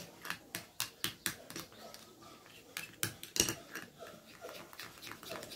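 A spoon stirring and scraping a thick paste in a small dish, with irregular clicks and knocks of the spoon against the dish; the loudest knock comes about three and a half seconds in.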